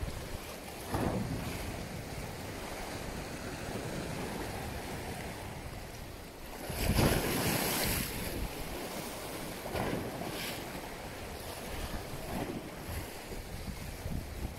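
Wind buffeting the microphone over choppy sea water, with a louder rushing splash lasting about a second near the middle as a hooked fish thrashes at the surface.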